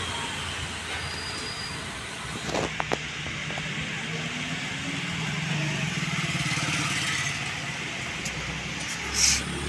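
Road traffic: a motor vehicle's engine running and passing, its rumble swelling and fading, over a steady background hiss. A couple of sharp clicks come about two and a half seconds in, and a short hissy burst comes near the end.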